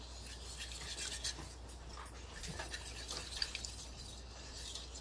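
Coil whisk stirring a thickening roux and chicken broth in a stainless steel saucepan: faint wet stirring with scattered light scrapes and clicks of the wire against the pan.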